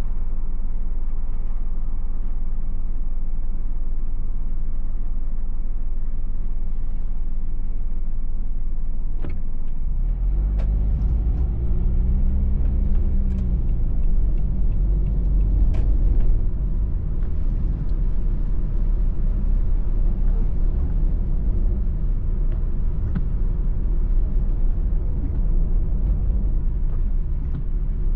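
Car engine and road noise heard from inside the cabin while driving. About ten seconds in, the low engine note gets louder and its pitch rises and falls as the car pulls away, with a few sharp knocks.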